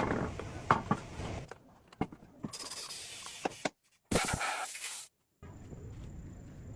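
Quick-cut workshop sounds: scraping with a few sharp knocks, then two separate bursts of hissing about a second each, cut off abruptly, followed by a steadier low noise.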